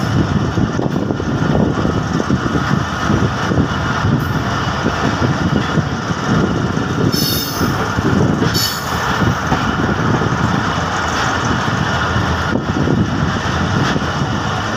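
Passenger train running along the track, heard from an open coach doorway: a steady loud rumble of wheels on rails, with two brief high-pitched squeals about seven and eight and a half seconds in.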